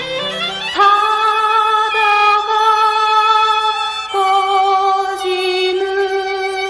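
Music: a slow Korean folk ballad, with long held melody notes of violin and a woman's singing voice rising into the first note about a second in and moving to a lower note about four seconds in.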